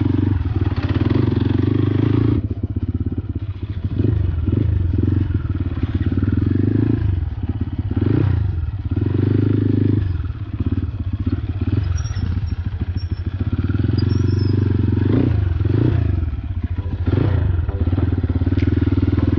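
Motorcycle engine running while the bike is ridden on a rough dirt track. The throttle opens and closes so the engine note swells and dips every few seconds, with a few short rising and falling revs.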